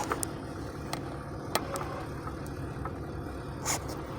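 Steady low rumble of a diesel engine idling, with a few light clicks and taps over it.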